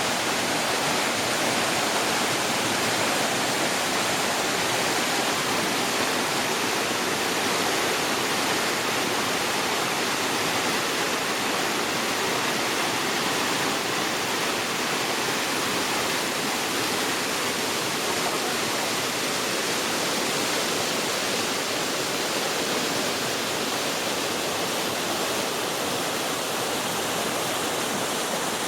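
Jungle waterfall cascade: a steady rush of falling water.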